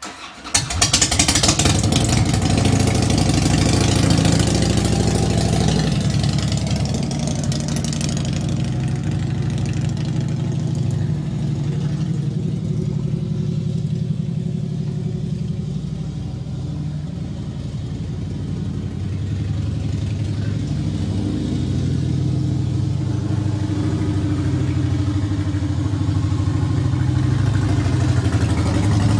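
Harley-Davidson Heritage Softail's V-twin engine starting about half a second in with a burst of revs, then running steadily as the motorcycle rides off. It grows somewhat quieter in the middle as the bike moves away and louder again near the end as it comes back.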